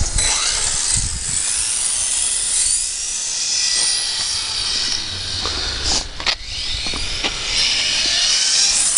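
Radio-controlled touring car driven at speed across asphalt: a high motor whine that rises and falls in pitch as it speeds up and slows. Wind rumbles on the microphone, and a few sharp clicks come around six to seven seconds in.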